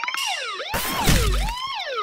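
Cartoon siren sound effect wailing, its pitch sweeping up and down about once every three-quarters of a second, with a deep rumble underneath it in the middle.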